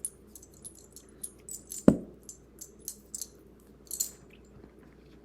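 Deck of cards being handled: light crisp rustles and ticks throughout, with one sharp tap on the table about two seconds in.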